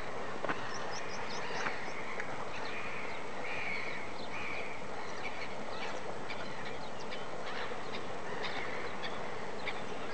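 Birds calling in short, repeated notes, with scattered brief chirps, over a steady outdoor hiss.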